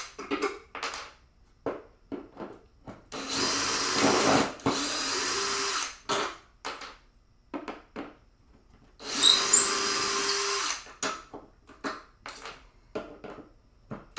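Power drill backing out screws in short trigger bursts and two longer runs of a second or two, with really loud high squeaking as the screws turn.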